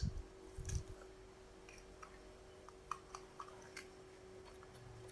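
Faint scattered clicks and light taps, as of small objects being handled, over a steady faint hum.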